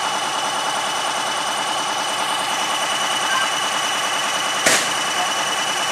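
Stainless-steel railroad passenger car rolling slowly past close by on curved track: steady wheel-on-rail noise with a steady high whine, and one sharp clank about four and a half seconds in.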